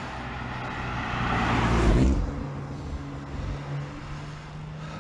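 A car passes by close on the road, its engine and tyre noise swelling to a peak about two seconds in and then fading away.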